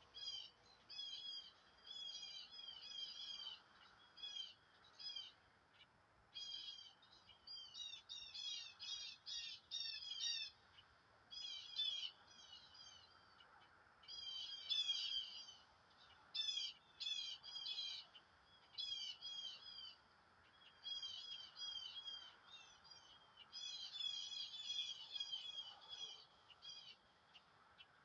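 Small songbirds chirping: quick runs of high, falling notes in repeated bursts, over a faint background hiss.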